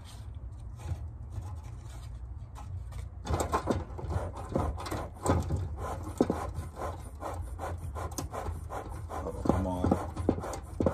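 Bee smoker's bellows squeezed by hand in a quick run of rasping puffs, starting about three seconds in. The puffs blow air through the burning paper and wood in the firepot to get the smoker going hot.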